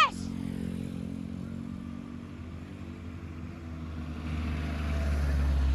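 A road vehicle's engine running as a low rumble that grows louder from about four seconds in.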